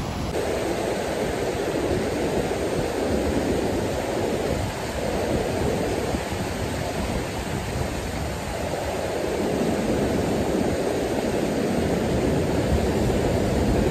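Kootenai River white water rushing over rock ledges and falls: a loud, steady rush of water.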